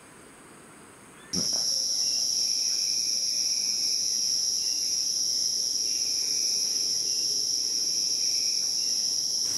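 Tropical forest insects droning, a loud steady high-pitched buzz that starts abruptly about a second in, with a fainter call pulsing beneath it about once a second.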